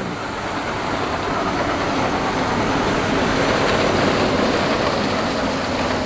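John Deere combine harvesting corn with a 12-row corn head: a steady, dense rumble and clatter of engine and threshing machinery.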